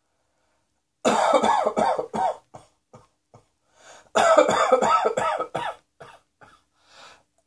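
A person coughing in two fits of rapid coughs in quick succession, the first about a second in and the second about four seconds in, with a few short faint sounds between them.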